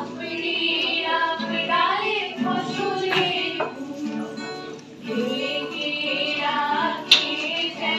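Women singing a song together to acoustic guitar accompaniment, the long sung notes gliding in pitch, with a few sharper guitar strums standing out.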